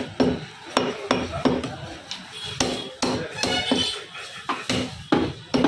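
Butcher's cleaver chopping mutton: a string of sharp chops at an uneven pace, about two a second.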